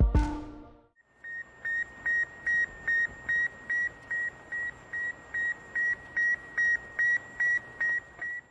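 Sputnik 1's radio signal: a steady run of short, high beeps, about two and a half a second, over faint radio hiss. Background music fades out just before the beeping starts.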